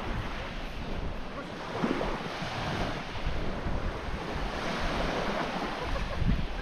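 Small waves breaking and washing onto a shingle beach, with wind buffeting the microphone in a low rumble.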